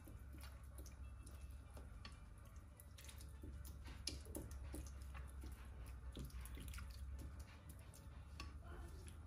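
Faint wet squishing and small sticky clicks of a hand rubbing a wet herb-and-oil seasoning paste into raw turkey wings, in an irregular run throughout, over a low steady hum.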